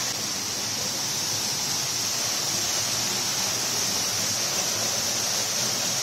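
Millomeris waterfall, a tall narrow fall dropping into a rock pool, rushing steadily and loudly.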